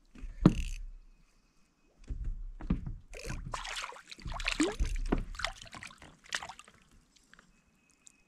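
A hooked crappie splashing and thrashing at the water's surface beside a kayak as it is reeled in, in a burst about half a second in and then a run of splashes from about two to six and a half seconds.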